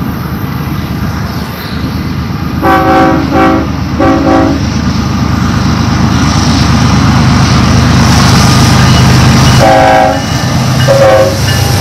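Diesel freight locomotive approaching and passing with a low rumble that builds as it nears, while its multi-note air horn sounds three short blasts about three seconds in and two more near the end.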